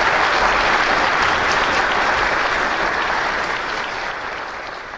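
Audience applauding, with the clapping gradually fading away over the last couple of seconds.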